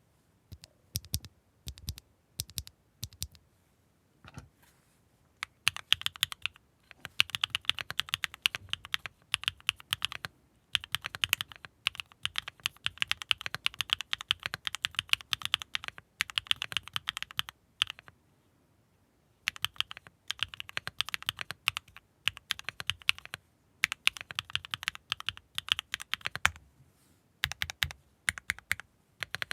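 Typing on a Neo65 Core Plus mechanical keyboard with Gateron Mars linear switches, a carbon-fibre plate and case foam, under KAP Disconnected Dark keycaps. A few single key presses at first, then fast continuous typing with a short pause about two-thirds of the way through.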